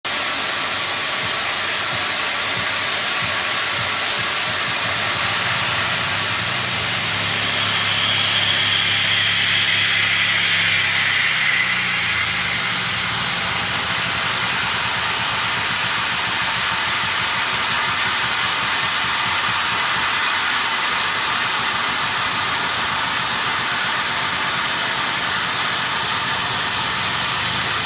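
CNC machining center running as it cuts a part for an injection mold, a steady loud hiss of spindle and cutting. From about seven to twelve seconds in, a low hum and a higher whine join in, then fade back into the hiss.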